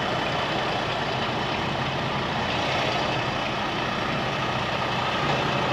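Semi truck's diesel engine running steadily at low speed while the truck reverses slowly.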